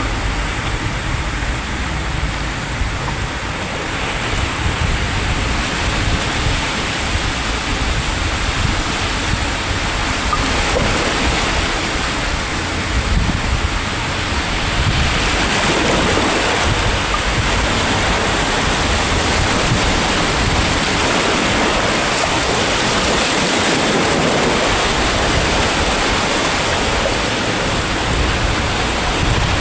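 Sea waves breaking and washing in as a continuous surf wash, swelling a little louder about halfway through, with wind buffeting the microphone as a low rumble.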